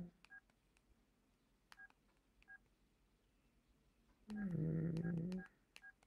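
LG KP215 clamshell phone's keypad tones: short beeps as menu keys are pressed, a few scattered early on and a quick run of them near the end.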